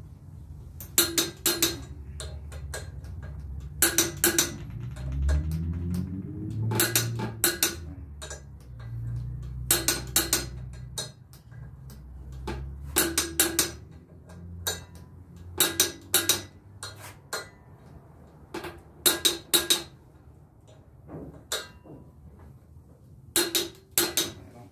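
Sharp metal-on-metal clinks of hand tools on an engine's flywheel while its torque converter bolts are worked on, coming in short clusters of two to four strikes about every two to three seconds. A low rumble runs under the first half and then fades.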